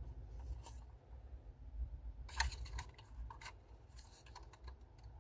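Faint small plastic clicks and scraping as a replacement power door lock switch for a 2011 Ford F-150 is worked into its housing in the door panel. A cluster of short ticks comes a little past halfway through.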